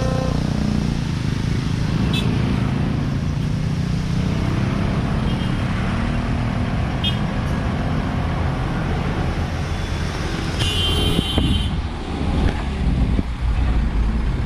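Road traffic running steadily, a dense low rumble of engines and tyres. The crossing's electronic warning tones cut off right at the start. A brief shrill sound about eleven seconds in.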